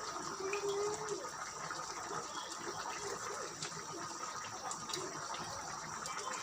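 Chicken and tomato sauce simmering in a pot, a steady low bubbling hiss with small pops.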